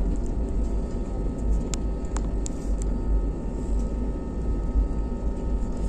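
Cabin noise of an Airbus A320neo taxiing: a steady low rumble of the engines at taxi power, with a faint steady whine and a few light clicks.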